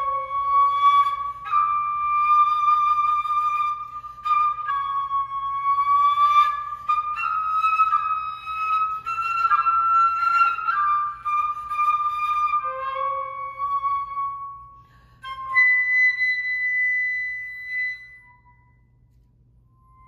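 Solo flute playing a slow melody of long held notes, ending on a high sustained note that fades away a couple of seconds before the end.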